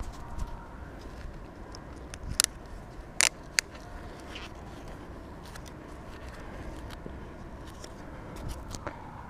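Mountain bike rolling over a loose dirt and sand trail: a steady low rumble of tyres on the ground, with a few sharp clicks and knocks from about two to four seconds in.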